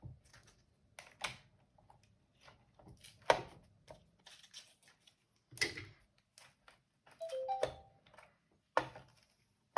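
Scattered clicks and knocks of plastic parts of a Eufy robot vacuum being handled and taken apart, with a short squeak about seven and a half seconds in.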